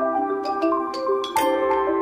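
Background music: a light tune of short struck mallet-percussion notes over held tones.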